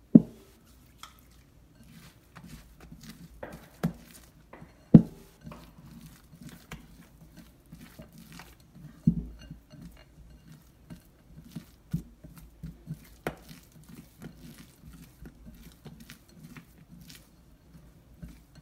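Oiled hands working soft, sticky sfenj yeast dough in a glass bowl: irregular soft slaps and clicks, with a few sharper knocks of hand or dough against the glass, the loudest just after the start and about five seconds in.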